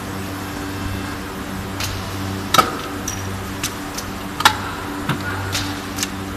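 Two-colour injection moulding machine running with a steady hum, while its mould opens with a string of sharp metallic clicks and clanks, about eight in all. The two loudest come about two and a half and four and a half seconds in.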